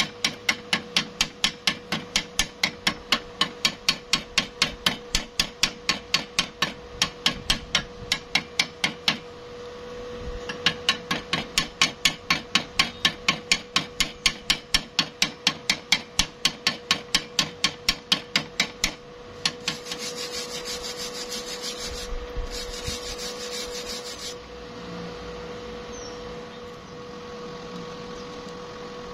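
Hammer rapping rapidly and evenly on a freshly stick-welded rebar joint, about four blows a second, chipping the slag off the weld bead; the blows stop briefly and then start again. After that come a few seconds of rough scraping over the metal.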